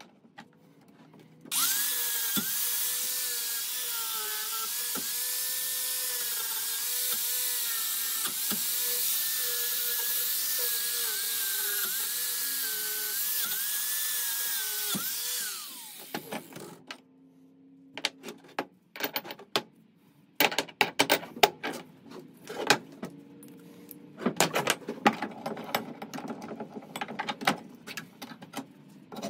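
Angle grinder with a wire cup brush running against a copper block clamped in a steel vise, its whine dipping slightly as the brush bites, then spinning down about halfway through. After a short pause, a run of quick, uneven scraping and rubbing strokes as the block is worked by hand.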